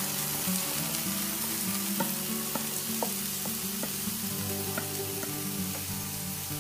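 Chopped onion sizzling in hot oil and garlic-ginger paste in a frying pan as it is tipped in from a steel bowl: a steady frying hiss with scattered small pops.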